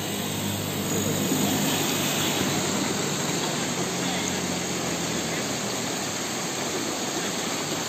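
Muddy floodwater from heavy rain rushing fast along a swollen stream and through the vegetation: a steady, loud rush of water.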